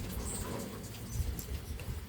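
Faint, brief high-pitched chirps of hummingbirds squabbling at a feeder, over a low rumble.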